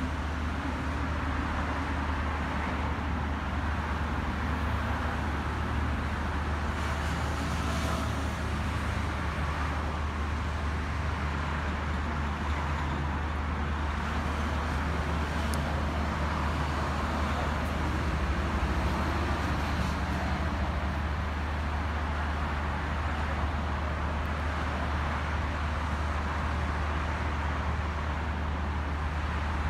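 Steady road traffic noise from cars on a wide city road: a constant wash of tyre and engine sound with a low rumble underneath, and no single vehicle standing out.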